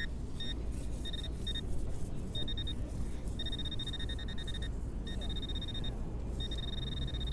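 Handheld metal-detecting pinpointer sounding a high-pitched electronic alert as it is probed over the grass. First it gives short separate beeps, then from about three seconds in longer, rapidly pulsing tones, the signal that the probe is closing in on a buried metal target.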